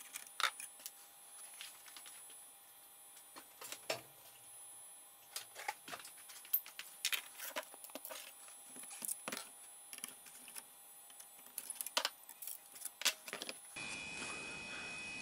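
A PC's hard disk whine, sped up fourfold so that it sounds high-pitched and seriously sick, under irregular sharp metal clicks and taps as a screwdriver and a steel drive handle are worked. Near the end it cuts to a steadier hum.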